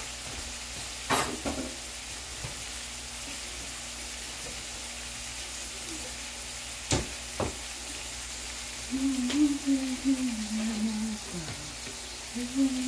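Tomatoes and peppers sizzling steadily in oil in a frying pan. Two sharp clicks come about a second in and about seven seconds in, and later a wavering tone lasts about two seconds.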